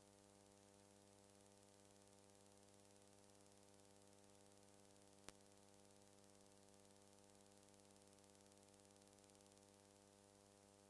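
Near silence: a faint steady electrical hum with hiss, and a single sharp click about five seconds in.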